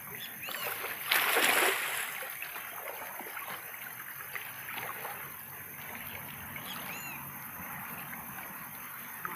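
A cast net thrown into a shallow river lands with a splash about a second in. Steady water hiss follows as the net sinks.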